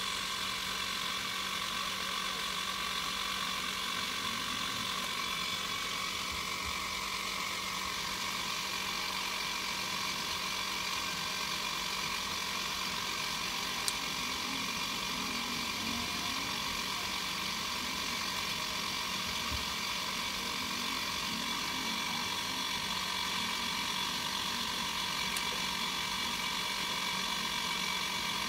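Potter's wheel spinning at a steady speed, a constant mechanical whirring hum with a faint rattle. There is one short click about halfway through.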